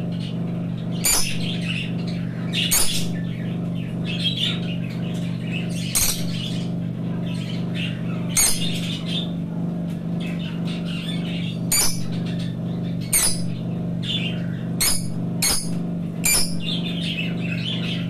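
Rosy-faced lovebirds calling: sharp, shrill squawks every second or two with softer chattering between them, over a steady low hum.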